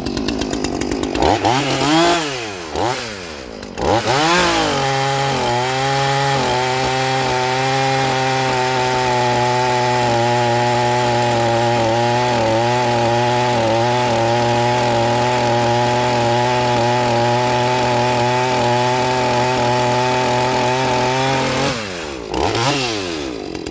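Two-stroke chainsaw engine blipped up and down a few times, then held at full throttle with no load, running steadily for about seventeen seconds, before dropping back with a couple of blips near the end. The saw is being revved out while warming up, for a quick carburettor tune.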